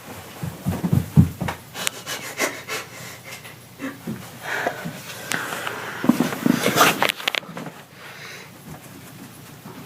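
A person breathing noisily and sniffing in irregular bursts, with some rubbing noises.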